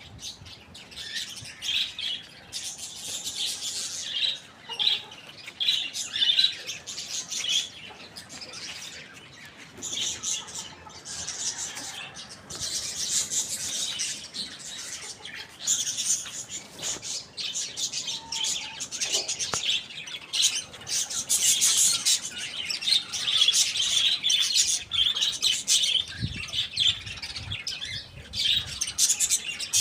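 Birds chirping: a continuous chatter of many short, high chirps overlapping one another.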